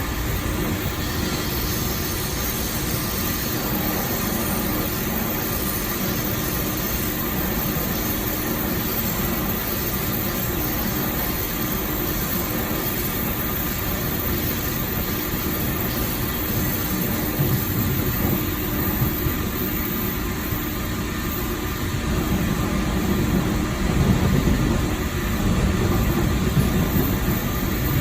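Running noise heard at the gangway connection between cars of a Taiwan Railways EMU3000 electric multiple unit on the move: a steady rumble of the train on the track with a faint steady hum. The rumble grows louder over the last few seconds.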